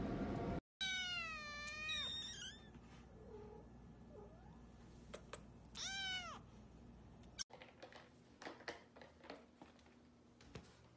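Kitten meowing: one long, high, slightly falling meow about a second in, and a shorter meow that rises and falls around the middle. Faint clicks and taps follow near the end.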